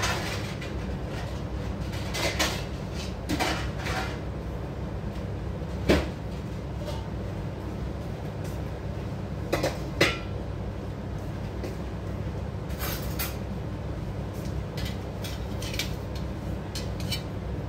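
Pot of rice cooking on a gas stove: a steady low rumble, with scattered sharp knocks and clicks, the loudest about six and ten seconds in.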